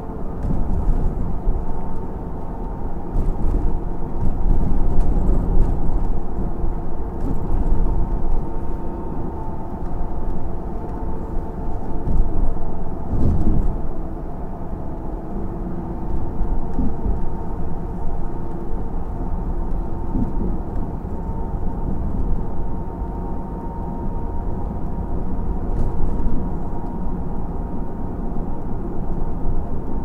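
Steady low rumble of a moving vehicle heard from inside, with a faint steady hum and light knocks as it runs over bumps and an uneven surface; one heavier bump about 13 seconds in.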